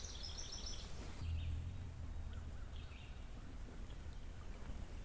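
Quiet outdoor background noise with a low steady hum that gets a little louder about a second in, and a few faint bird chirps.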